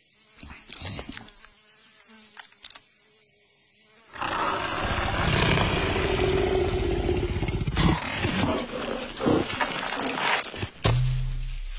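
Roar of a cartoon leopard. It starts loud and long about four seconds in, breaks into several shorter bursts, and ends with a low thud near the end. Before it, a faint insect buzz.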